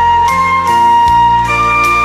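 Flute playing the melody in long held notes that step upward in pitch, over an accompaniment with a low bass line and regular drum hits.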